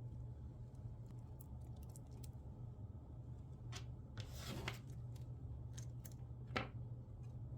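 Plastic zip ties being handled and fastened around cables: scattered light clicks, a brief rasp about four and a half seconds in, and a sharper click near the end, over a steady low hum.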